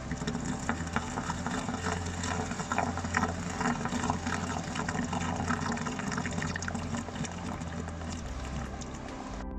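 Noise from a commercial storage freezer: a steady hiss laced with many small irregular crackles, over soft background music. It starts and cuts off abruptly.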